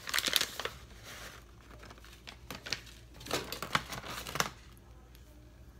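A plastic food bag crinkling as it is handled, in a run of short crackly bursts that stop about four and a half seconds in.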